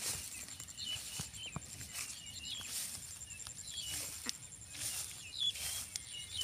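Rice stalks swishing in repeated rustles, about one or two a second, as someone walks through a rice paddy, with short chirping bird calls and a steady high insect trill behind.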